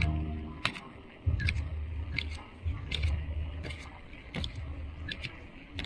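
Bicycle riding on a concrete road: uneven low rumble of wind and tyres, with a sharp tick repeating about every three-quarters of a second.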